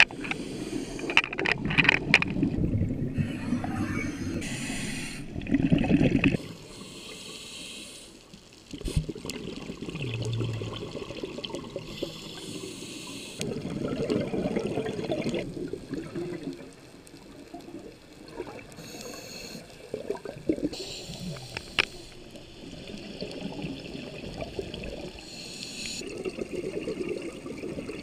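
Scuba divers breathing through regulators underwater: exhaled bubbles rushing and gurgling in surges every few seconds, loudest in the first six seconds.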